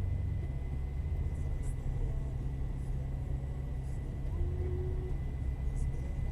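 Car driving along, a steady low engine and road rumble.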